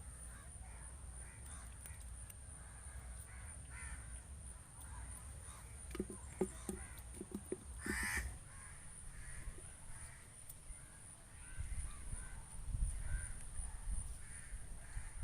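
Crows cawing repeatedly, with one louder, closer caw about halfway through, over a steady high-pitched whine.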